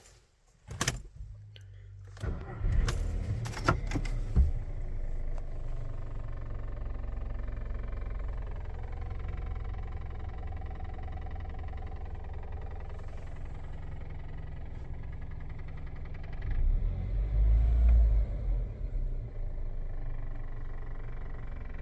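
VW Golf Mk6 engine starting after a few clicks, then idling steadily with a low rumble that swells briefly near the end. This is the idle vibration that makes the loose fuel pipes rattle against the chassis.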